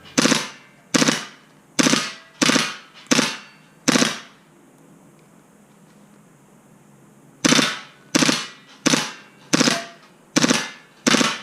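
KWA MP7 HPA-powered gas blowback airsoft gun firing, unsuppressed: sharp reports about every 0.7 s, six shots, a pause of about three and a half seconds, then six more.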